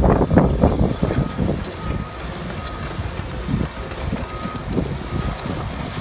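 Liebherr tracked demolition excavator at work: its attachment crunches into brick rubble over the diesel engine's low rumble, loudest in about the first second. After that, a warning alarm keeps sounding short high beeps while the engine runs on.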